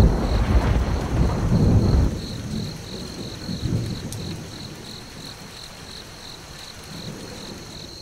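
Thunder rumbling over steady rain; the thunder dies away about two seconds in, leaving the rain, which slowly fades.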